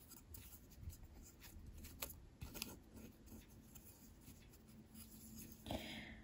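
Faint handling noises: light clicks and rubbing as a small wooden craft piece is turned over in the fingers, with a short rustle of packaging near the end.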